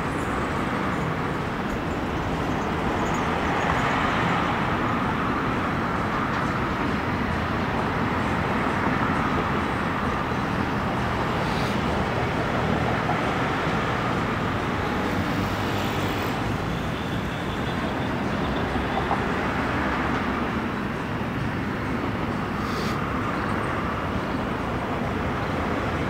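Steady noise of an Airbus A319 jet airliner's engines on final approach, heard from a distance, swelling and easing gently a few times.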